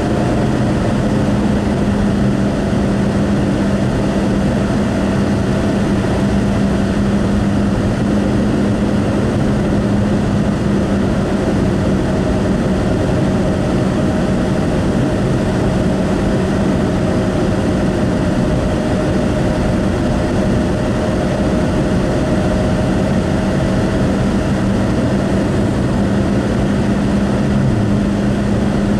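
Steady road and engine noise heard inside a moving car at highway speed: tyre rumble on the pavement with a constant low engine drone.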